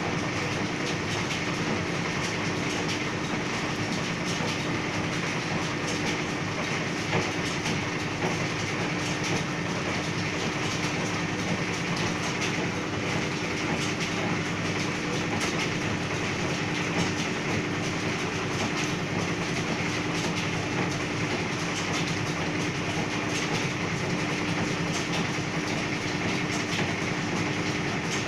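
Antique wool carding machine running steadily as dyed wool is carded onto its cloth-covered drum: a continuous mechanical clatter with a steady hum.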